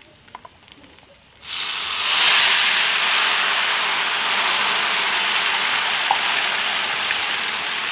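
Thin flour batter poured into hot oil in a wok over frying tempeh, bursting into a loud, steady sizzle about a second and a half in as the batter fries into a crisp coating. Before that, only a few faint clicks.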